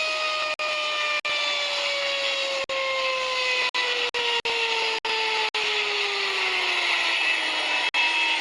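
Helicopter engine whine with several tones falling slowly and steadily in pitch over a hiss, as if winding down; the sound cuts out for an instant about a dozen times.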